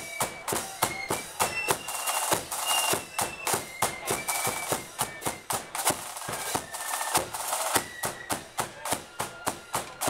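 Flute band playing a march: a melody of short flute notes over a steady, quick drum beat.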